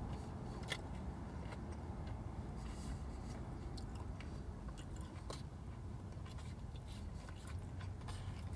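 A man quietly chewing a mouthful of curry and rice, with a few faint clicks of a plastic spoon against the plate, over a low steady rumble.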